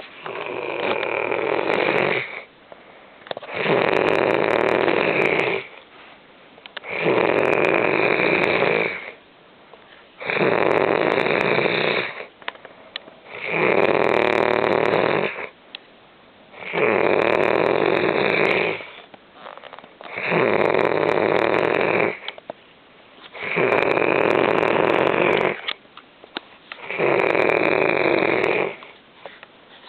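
Loud, regular snoring: nine rasping snores, each about two seconds long, coming about every three and a half seconds with quiet breaths between them.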